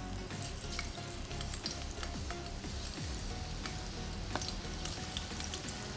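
Potato fingers coated in besan and rice-flour batter deep-frying in hot oil in a steel kadhai. A steady sizzling hiss runs throughout, with scattered small pops and crackles as more battered sticks go into the oil.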